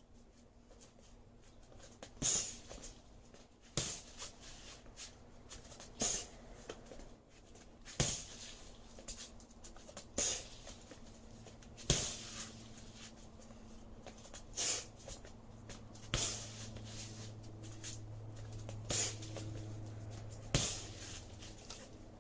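Kicks smacking a double-end ball: about ten sharp slaps, roughly one every two seconds. A low steady hum comes in about halfway through.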